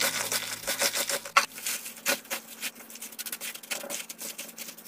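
Hands in disposable plastic gloves tossing and rubbing shredded cabbage with sugar in a plastic bowl: irregular crinkling and rustling, busier in the first half and sparser later.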